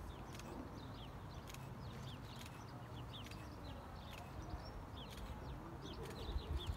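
Small birds chirping over and over in quick short notes, over a low rumble, with a few soft bumps near the end.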